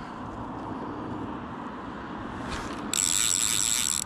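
Fly reel's click-and-pawl ratchet buzzing loudly for about a second near the end as fly line is pulled off it.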